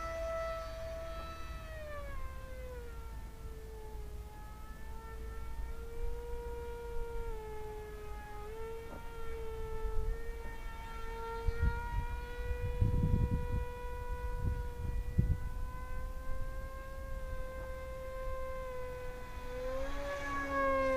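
Electric motor and two-blade propeller of an RC delta-wing plane whining in flight. The pitch drops a couple of seconds in, holds steady, and rises again near the end. Wind buffets the microphone in gusts midway.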